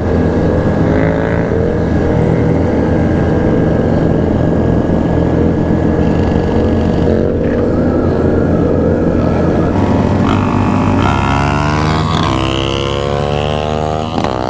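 Motorcycle riding at a steady road speed, the engine running at a steady pitch. About ten seconds in, engine pitches start rising and falling as motorcycles accelerate and rev.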